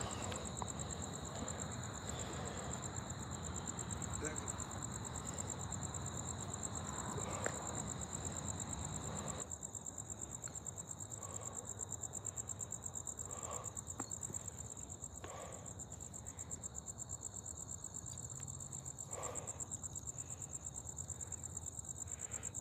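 Crickets chirping in a steady, high, fast-pulsing trill, with a few faint brief sounds scattered through it.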